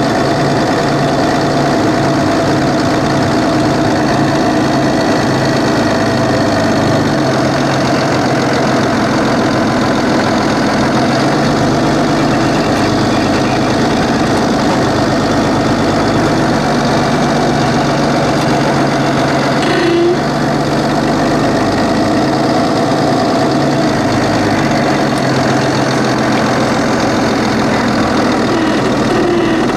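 Thomas Built Saf-T-Liner C2 school bus engine running steadily at low speed, heard from the driver's seat inside the cab. A brief click about twenty seconds in.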